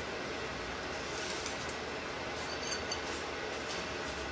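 Induction cooktop running at high power, its cooling fan giving a steady noise with a faint steady hum over it.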